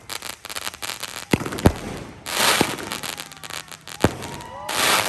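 Dragon Fireworks 'Dragon's Gold of the Aztecs' firework going off: a dense run of crackling broken by sharp bangs about a second and a half in and near four seconds. Two loud bursts of hissing crackle come about two seconds in and near the end.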